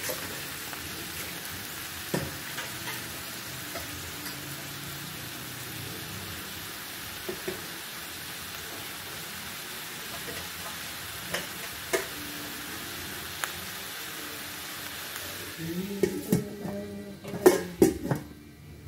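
Food sizzling steadily in hot oil in a pan, with occasional light clinks of a utensil. Near the end the sizzle drops away and there are a few loud knocks and clatters.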